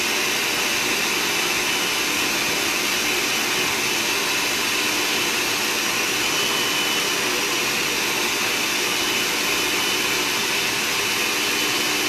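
Countertop blender motor running steadily, puréeing a thin green sauce of herbs, hot pepper, oil and water.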